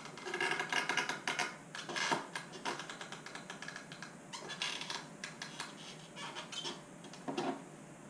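Plastic parts of an Audi S4 B7 headlight assembly creaking, squeaking and clicking in quick irregular runs as they are pried and pulled apart with a screwdriver.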